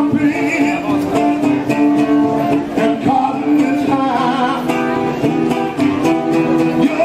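Acoustic guitar strummed by a street musician, with a man's voice singing long held notes over it.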